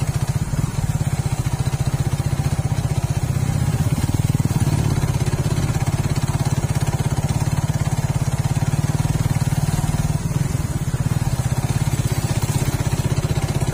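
Suzuki Raider R150 Fi motorcycle's single-cylinder engine running steadily under way, close to the microphone.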